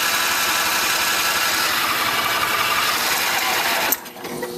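20 HP Briggs & Stratton engine of a Craftsman lawn tractor being cranked by its electric starter on starting fluid, trying to catch but not running on its own. The cranking stops abruptly about four seconds in as the weak battery gives out.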